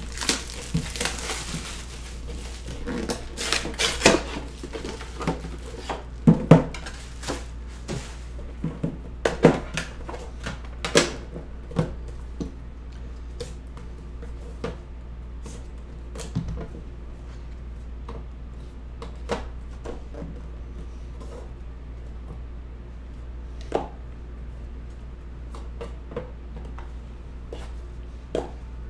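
Shrink wrap crinkling as it is torn off a sealed trading-card box, then scattered clicks and knocks as the metal tin and the small card box inside it are handled and its lid is lifted off.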